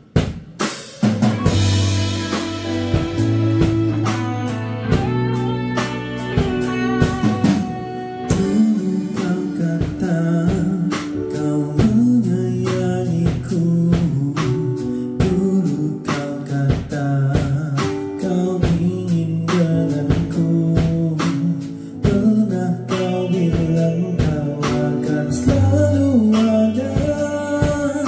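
A band playing a song: a drum kit keeps a steady beat under guitar and a singing voice, the full sound coming in about a second in.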